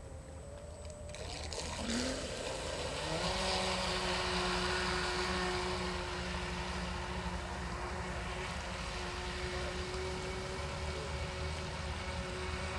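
Radio-controlled speedboat's motor spinning up from rest about two seconds in, then running at a steady high pitch as the boat planes at speed, with the hiss of water spray.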